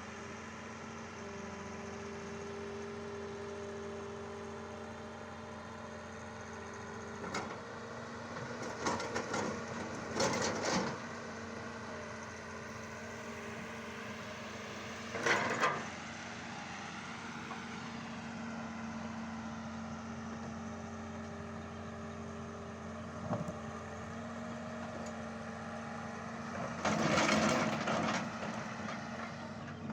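Excavator's diesel engine running at a steady pitch, with several loud, short bursts of scraping and cracking, the longest near the end.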